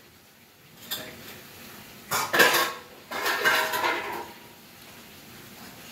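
Steel spoon clinking and scraping against a small stainless-steel bowl of saffron milk as it is stirred, in a couple of short bursts after a single click about a second in.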